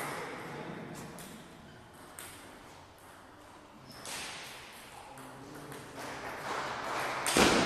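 Table tennis rally: the celluloid-type ball clicking off paddles and the table, echoing in a large hall, with a few separate strikes in the middle and a quick run of them late on. A loud sudden sound comes just before the end.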